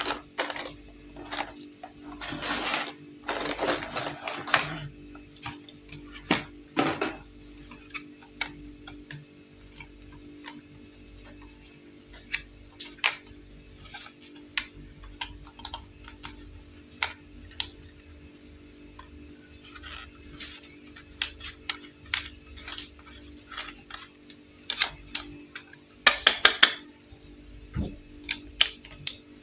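A hard plastic toy sewing machine being unpacked and handled: a few seconds of plastic packaging rustle and crackle, then scattered clicks and taps of plastic on plastic, with a short cluster of sharper clicks near the end. A faint steady hum runs underneath.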